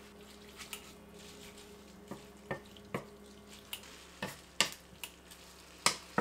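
Stir-frying in a pan: a faint sizzle of glass noodles, chicken and vegetables sautéing in a little liquid, with irregular clicks and taps of the stirring utensil against the pan.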